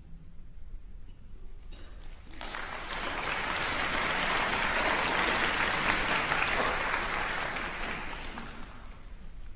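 Audience applauding after a choral piece, swelling in about two seconds in and dying away near the end.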